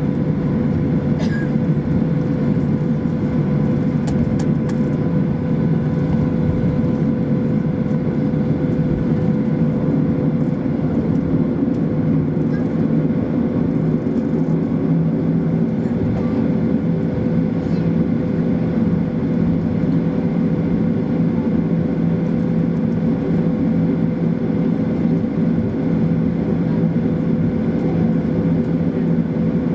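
Cabin noise of a Boeing 737-800 taxiing: a steady hum from its CFM56 engines turning at low power, mixed with the even rush of the cabin air conditioning.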